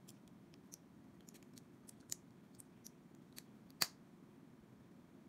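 Small plastic building-brick pieces clicking as they are pressed and snapped together by hand: a run of faint ticks, with a sharper snap about two seconds in and the loudest about four seconds in.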